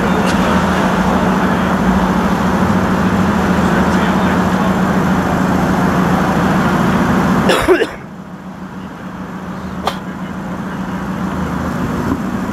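Steady motor-vehicle hum from the street, with a low drone. About eight seconds in, a brief rustle comes and the hum drops off sharply, then slowly rises again, with a single click a couple of seconds later.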